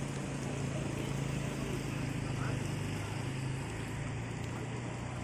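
A motor vehicle's engine running with a steady low hum that fades about three and a half seconds in, over a steady rushing noise.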